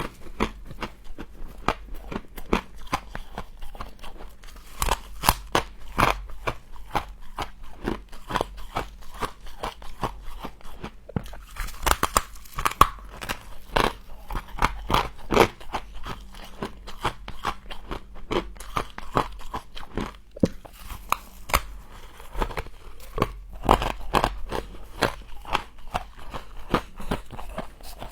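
Mouthfuls of humidifier-grown freezer frost being bitten and chewed close to the microphone: a dense run of crisp, crackly crunches.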